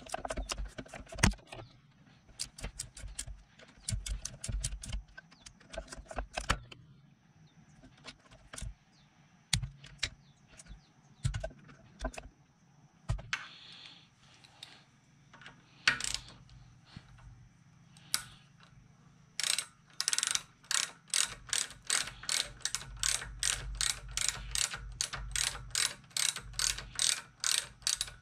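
Hand ratchet clicking as bolts are run in on an oil pump, through the holes in its chain sprocket. The clicks come in short bursts at first, then sparse ones. About two-thirds of the way through they settle into a steady run of about four clicks a second.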